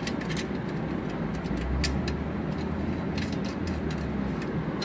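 A few light clicks and taps from a hand handling a motorcycle's exhaust heat shield and its bolts, over a steady low background rumble that swells twice.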